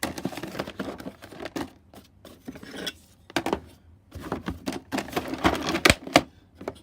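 Metal hand tools clinking and clattering as they are handled in a tool chest drawer, with a rapid string of clicks and some rustling, busiest about five seconds in.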